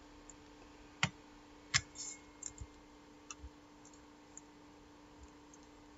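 Clicks of a computer mouse and keyboard: two sharper ones, about a second in and just before two seconds, then a few fainter ticks, over a faint steady hum.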